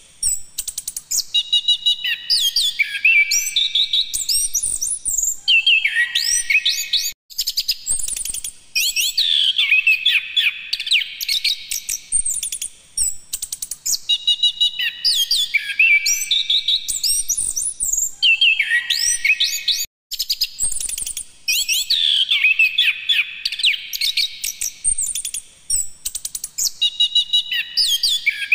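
Chestnut-capped thrush (anis kembang) singing a loud, continuous, varied song of rapid whistled notes that sweep up and down, given in long runs with a couple of brief breaks.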